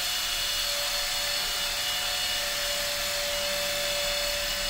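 Makita DTD157 18V brushless cordless impact driver running free with no load, spinning a socket on its adapter: a steady motor whine with no hammering.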